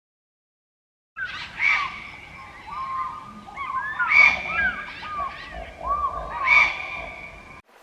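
Birds calling: many short calls that swoop up and down overlap one another, with three louder calls about two and a half seconds apart. The calling starts suddenly about a second in and cuts off just before the end.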